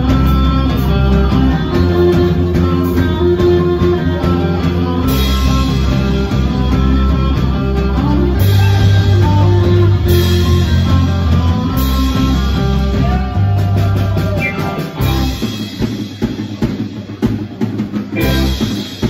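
Live rock band playing, with electric guitar, keyboard, drums and an electric bass guitar close to the microphone holding low notes. About fifteen seconds in, the low bass notes stop and the music thins out.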